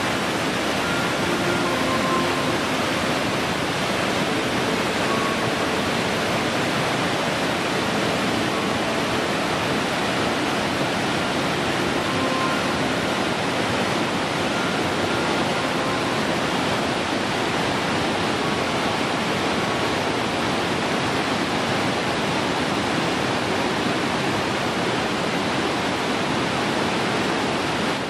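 Waterfall: water rushing and splashing down over rocks in a steady, unbroken rush.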